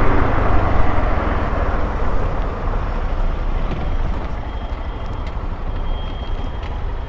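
Honda XRE 190 motorcycle on the move: a dense rush of wind and road noise with a heavy low rumble, easing off gradually as the bike slows.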